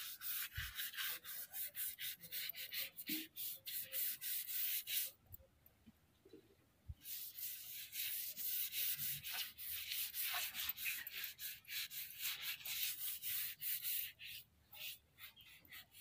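Flat paintbrush bristles stroking quickly back and forth over a bare wooden board, a rapid scrubbing swish of about three strokes a second as orange finish is brushed on. It breaks off for about two and a half seconds about five seconds in, then resumes.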